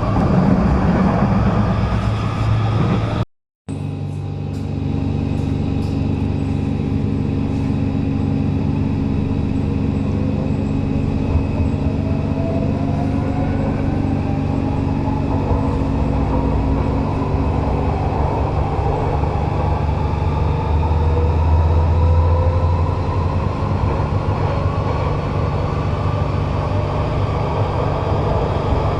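Metro train running, with a steady low hum and a motor whine that rises slowly in pitch through the second half as the train picks up speed. The sound cuts out for a moment a few seconds in.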